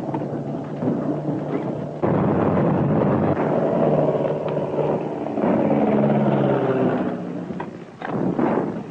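Battle sound effects on an old film soundtrack: a dense, continuous rumble with a droning hum, broken by a few sharp cracks of gunfire near the start and near the end.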